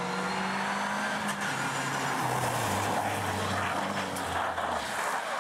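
Peugeot 207 rally car passing at speed through a wet corner, its engine note dropping in steps as it goes by and away, over a strong hiss of tyres on the wet road.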